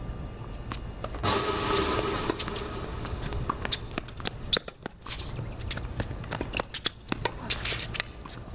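Tennis rally on a hard court: a series of sharp pops as the ball is struck by racquets and bounces on the court, along with players' footsteps. About a second in there is a louder rushing noise lasting about a second, over a steady low rumble.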